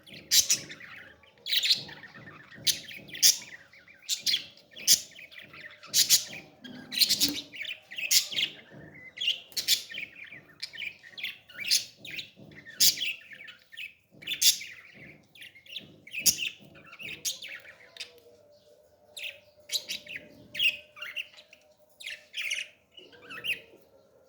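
Parrot chicks' begging calls during feeding: short, sharp, high chirps repeating about once a second.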